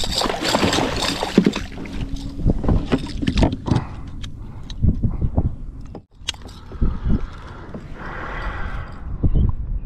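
A hooked striped bass thrashing and splashing at the surface beside a kayak, loudest in the first second or so. This is followed by scattered knocks and scrapes as the fish is clamped with a plastic lip-gripper and lifted out against the hull.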